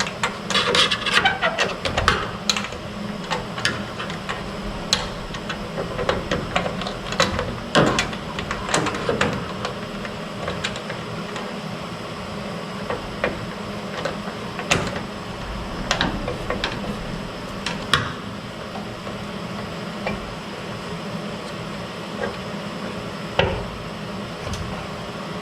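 Hand work on a truck door latch assembly being adjusted: scattered metal clicks, taps and knocks, busiest in the first couple of seconds and again around a third of the way in, over a steady low hum.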